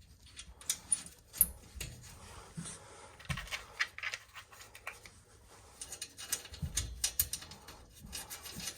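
Irregular small metallic clicks and clinks of nuts and washers being handled and fitted back onto the boiler, with a few sharper knocks among them.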